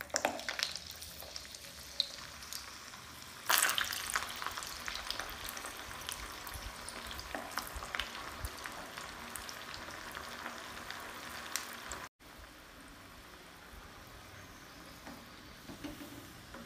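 Semolina-coated potato fingers deep-frying in hot oil: a dense sizzle and crackle that starts as the first piece goes in. It surges louder about three and a half seconds in and settles to a quieter sizzle about twelve seconds in.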